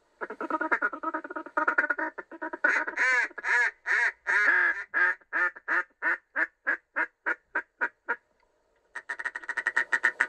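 Duck call blown to sound like a hen mallard: a rapid chatter, then a run of loud quacks that come quicker and shorter before stopping about eight seconds in, with fast chatter starting again near the end.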